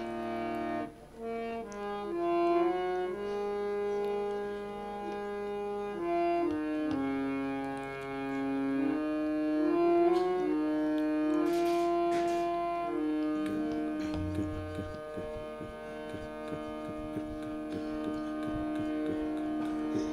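Harmonium playing a devotional kirtan melody in held, reedy notes over a steady drone. Soft taps join in about two-thirds of the way through.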